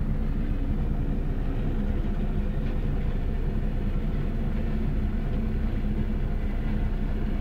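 Flat railway wagons loaded with sleepers and rails rolling slowly over a level crossing, pushed by a diesel locomotive: a steady low rumble with an engine running at idle underneath.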